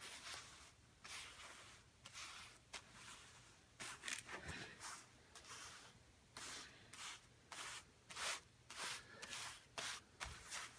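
Faint, irregular rustling and shuffling of handled papers, short scrapes and flutters coming one after another.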